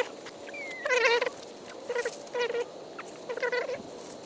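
A bird calling: four short, pitched calls spaced about a second apart.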